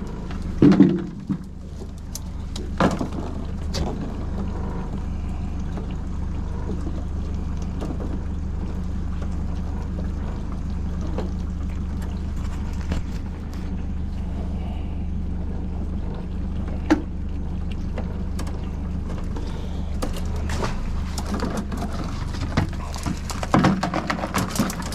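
Small boat's motor running steadily at low speed, with a few light knocks and splashes.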